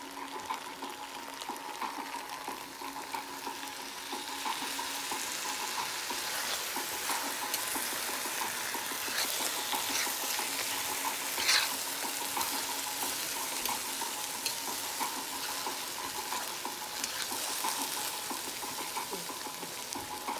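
Diced potatoes sizzling in a hot oiled pan, the sizzle growing louder a few seconds in as half a glass of water hits the pan and steams, with a spoon stirring.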